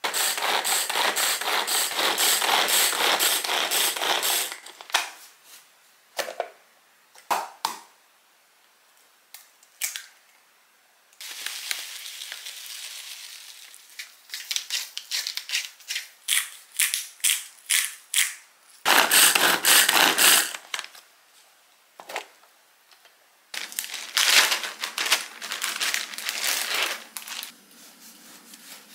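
Close-up food-prep sounds: for the first few seconds a hand pull-cord chopper chopping shrimp with vegetables in a plastic bowl, a loud dense crunching. Later a salt and pepper grinder twists in a run of short crunchy clicks, followed by further bursts of scraping and mixing.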